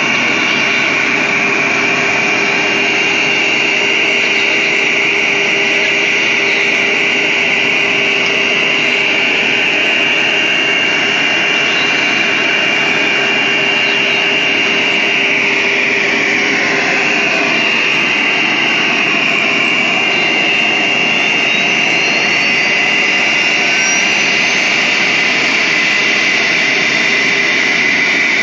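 Wood CNC router running: a loud, steady machine noise with a high spindle whine that drops slightly in pitch about two-thirds of the way through.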